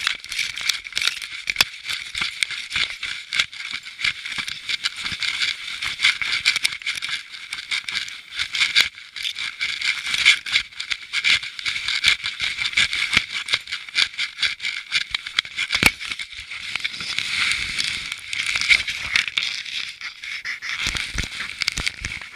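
Continuous irregular rattling and clicking from a camera and its mount worn on a dog, jostled as the dog moves about.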